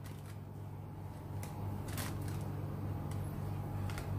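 Soft rustling of parchment paper and a few light clicks as gloved hands place sliced vegetables and garlic in a lined baking pan, over a steady low hum.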